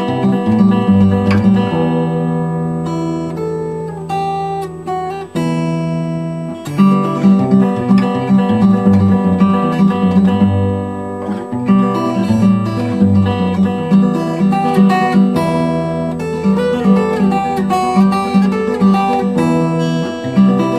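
Acoustic guitar played solo, picking out a melody of single notes over low bass notes, with a few notes or chords left ringing longer along the way.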